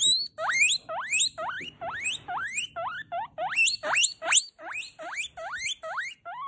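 Guinea pig wheeking: a fast series of loud, rising squealing whistles, about two or three a second.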